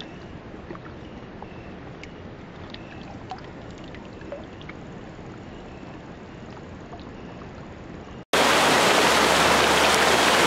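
Quiet river flow with small trickles and drips, then about eight seconds in a sudden cut to the loud, steady rush of whitewater rapids.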